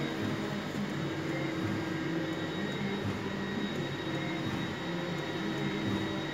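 Epson SureColor T7200 large-format inkjet printer running as it prints, its carriage motor humming steadily in passes that pause and resume every second or two over a faint high whine.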